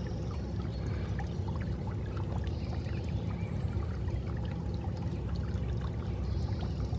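Steady low rumbling background noise with no distinct events, and a faint high hiss that comes and goes about every three seconds.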